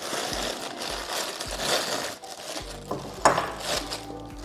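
Plastic packaging crinkling and rustling as a small metal part is unwrapped from its bag, with one sharp click a little over three seconds in. Steady background music starts about two seconds in.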